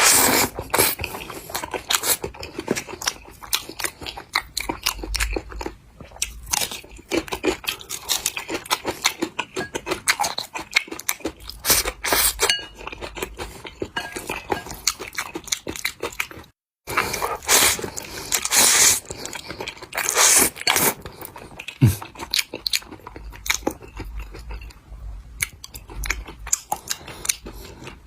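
Close-miked eating: a person chewing and crunching mouthfuls of noodles, with many small wet mouth clicks and bites in an irregular stream. The sound drops out completely for a moment a little past halfway.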